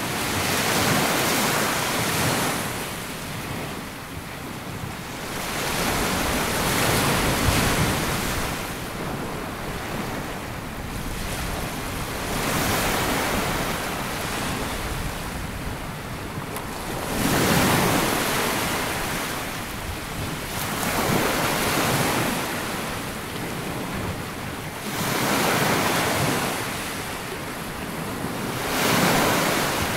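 Small sea waves breaking and washing up a sandy beach, each wash swelling and fading, one every four to six seconds.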